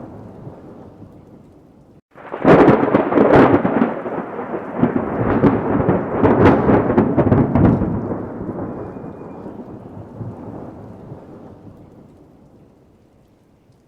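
Thunderclap from a nearby lightning strike: a fading rumble, a short pause, then a sudden sharp crack about two seconds in, several seconds of crackling, and a long rolling rumble dying away toward the end.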